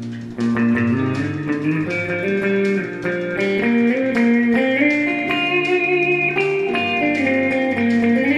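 Guitar instrumental: a held, stepping lead melody over evenly picked accompaniment, played on an archtop electric guitar with a second guitar part layered in.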